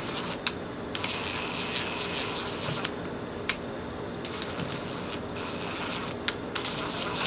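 A screwdriver turning a screw into the plastic housing of a Shark vacuum, with scattered clicks and a scraping hiss about one to three seconds in. The screw hole is stripping out.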